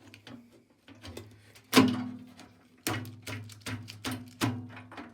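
Knocks and clicks of tools and metal parts as a part inside a microwave's metal casing is worked loose. The loudest knock comes about two seconds in, followed by a run of smaller clicks.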